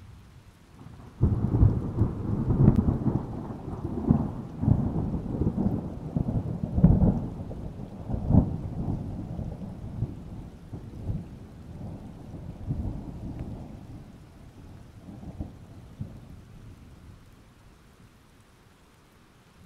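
A thunderclap breaking suddenly about a second in, then rolling and rumbling with several loud cracks and slowly dying away over some fifteen seconds, with rain beneath it.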